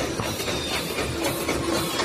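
Automatic book sewing machine running, a steady mechanical clatter of fast, evenly repeating clicks over a hum.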